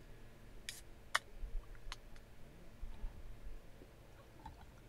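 A Fanta soda can being cracked open by its pull tab: a short fizzy hiss, then a sharp click about a second in and a smaller click shortly after. Faint splashes near the end as the soda starts pouring onto ice in a glass mug.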